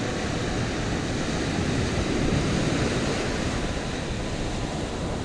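Ocean surf breaking and washing up a sandy beach, a steady rushing that swells about two seconds in, with wind rumbling on the microphone.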